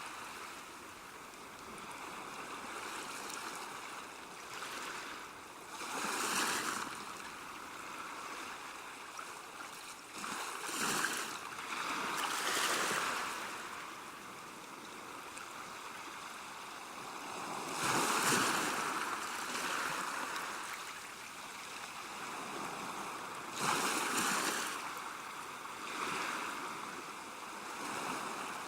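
Sea waves washing onto the shore, rising and falling in swells every few seconds over a steady wash of surf.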